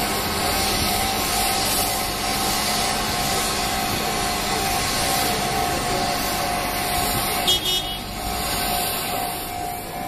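Steady outdoor din with a truck engine running and a steady hum tone throughout. A short sharp click-like sound comes about seven and a half seconds in.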